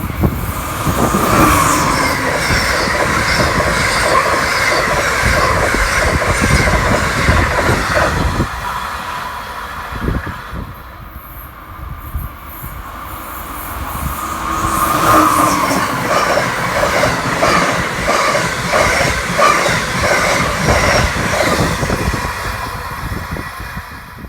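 Amtrak Northeast Regional trains passing through one after the other: steady wheel-on-rail noise with a rhythmic clickety-clack of wheels over rail joints. The first train dies away about nine seconds in, and a second builds up from about fourteen seconds.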